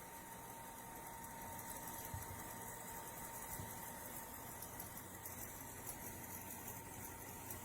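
Faint steady background hiss and low hum with a thin, steady high tone: room tone with no distinct event.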